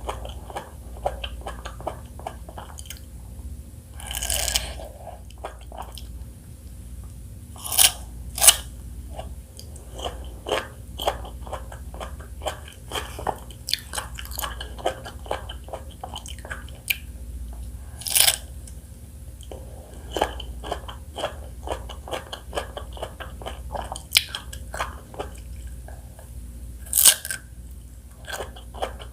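Close-miked chewing and biting of fresh fruit: a steady run of small wet crunches, with a few louder sharp bites scattered through.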